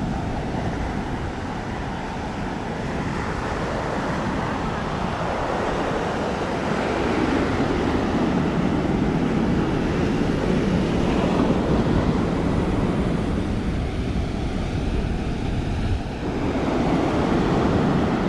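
Surf washing onto a sandy beach with wind buffeting the microphone, the wash swelling and easing every few seconds.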